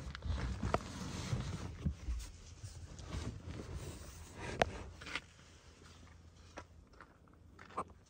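A plastic storage box being slid and handled, with plastic scraping and rubbing and a few sharp knocks. It grows quieter after about five seconds.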